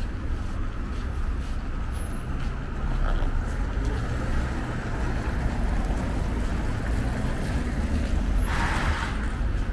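Street traffic: engines and tyres of passing cars and vans running steadily under a deep low rumble. Near the end comes a short hiss.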